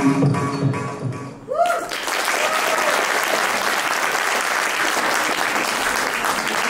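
The thillana's Carnatic dance music ends about a second and a half in, and an audience breaks into applause that carries on steadily.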